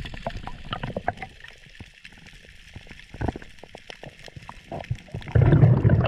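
Underwater sound picked up through a GoPro housing: scattered sharp clicks and knocks. About five seconds in, a loud, low rush of water as the diver comes up to the surface.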